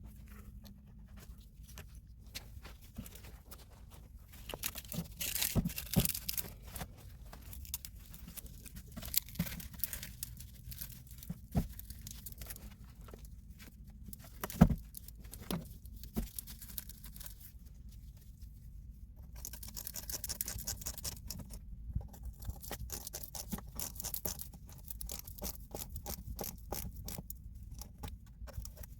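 Handling noises: rustling and scraping with scattered sharp knocks, the sharpest about halfway through, and a longer stretch of rustling in the last third.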